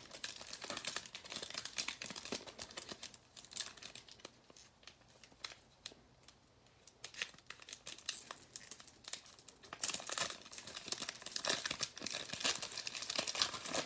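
Foil trading-card pack wrapper crinkling and being torn open by hand, a dense crackle that quietens in the middle and grows busier and louder near the end.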